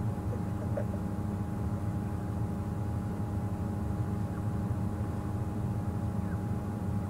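Steady low rumble of a safari vehicle's engine idling, with a faint constant hum over it.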